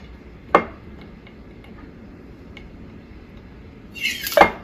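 Metal lid lifter prying at the sealed metal lid of a home-canned mason jar. There is a sharp click about half a second in and a few faint ticks, then near the end a brief hiss and a loud pop as the vacuum seal breaks and the lid comes free.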